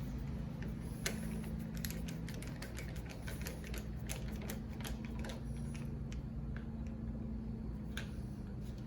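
Irregular small metal clicks and taps from handling and fitting new door latch and doorknob hardware, over a steady low hum.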